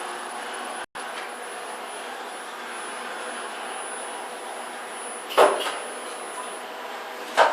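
Steady hum and whir in the machine room of a Hyundai Luxen LXVF1 gearless traction elevator, with faint steady tones. Two sharp clacks stand out, about five seconds in and again two seconds later. The sound cuts out for an instant about a second in.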